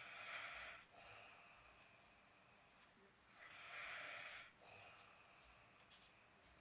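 A sleeping man snoring faintly in slow, even breaths, about one every three to four seconds. Each breath is a louder, rasping breath followed by a softer, drawn-out one, twice over.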